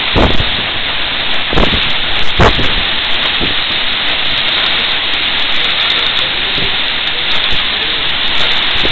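Hurricane-force storm wind with driving rain, a dense steady hiss. A few louder gusts surge through in the first three seconds.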